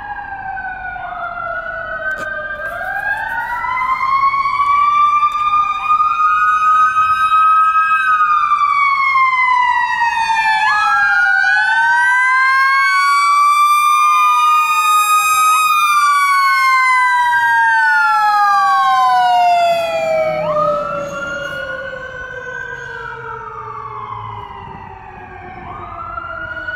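Pierce fire engine responding under sirens: several siren tones rise and fall over one another, one of them winding slowly down over the last ten seconds. The sound swells as the engine approaches and passes, then fades as it drives away.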